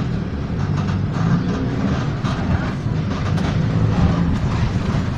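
Mercedes-Benz OF-1418 bus's diesel engine and exhaust running steadily, with scattered rattles and knocks over the drone.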